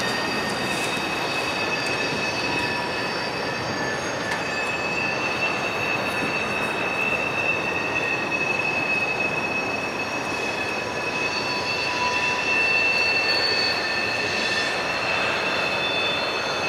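Coke hopper cars rolling along steel-mill track, their wheels on the rail making a steady grinding noise with several high-pitched wheel squeals, each held for several seconds.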